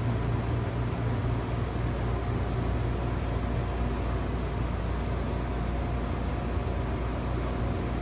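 A 52-inch generic hugger ceiling fan running steadily on medium speed, together with a room air conditioner running, giving a steady low hum under an even whoosh.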